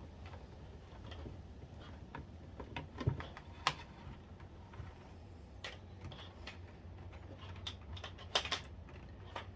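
Scattered small clicks and taps of a fan cable and plastic parts being handled and pushed into place inside an opened PlayStation 3, with a few sharper clicks about three seconds in and again past eight seconds.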